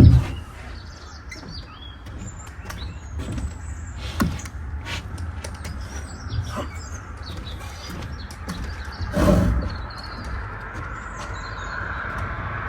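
Small birds chirping, with a sharp knock at the start, another about four seconds in and a heavier thump about nine seconds in.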